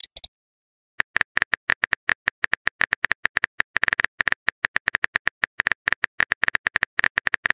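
Phone keyboard typing sound effect: rapid, crisp key clicks, several a second, starting about a second in as a text message is typed out letter by letter.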